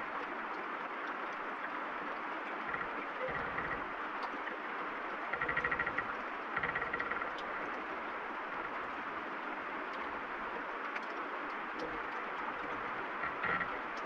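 Steady heavy rain falling, with two short creaks of tree branches straining about five and six and a half seconds in.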